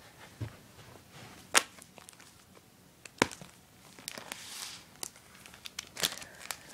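Comic books in plastic sleeves being handled and shuffled on a carpeted floor: a few sharp crinkles and clicks of the plastic, the loudest about a second and a half in, and a soft rustle a little after four seconds in.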